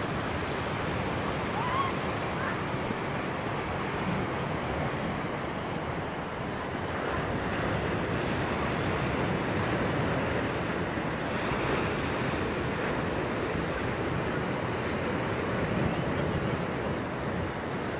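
Sea surf breaking and washing over a rocky shore, a steady rush, with wind on the microphone.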